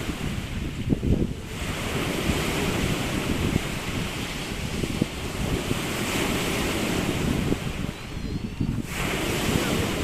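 Surf washing onto a beach, its hiss swelling and fading, with wind buffeting the microphone. The wash drops away briefly near the start and again about eight seconds in.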